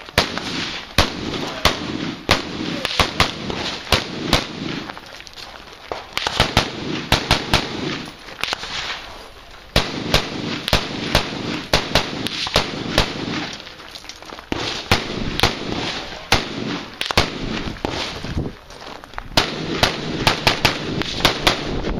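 AR-15 rifle fired rapidly in quick strings of shots, with short pauses between the strings.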